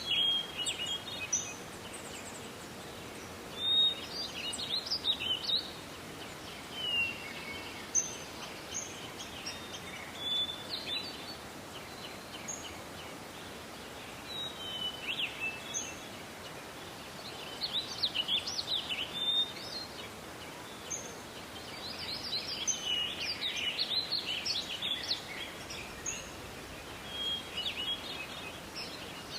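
Several small songbirds chirping and trilling in a forest, in scattered short high phrases that grow busier past the middle, over a steady soft hiss of forest ambience.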